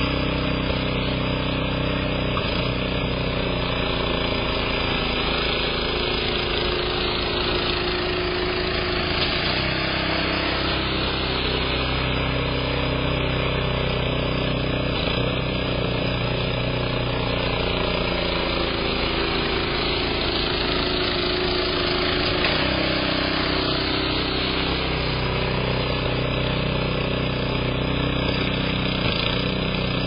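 A tracked gas snowblower's engine running steadily under load as it clears deep snow, its pitch rising and falling a little now and then.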